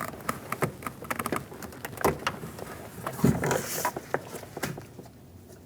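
Sharp plastic clicks and knocks from hands working inside a car door, unlatching and pulling out a wiring connector, with a couple of louder knocks about two and three seconds in.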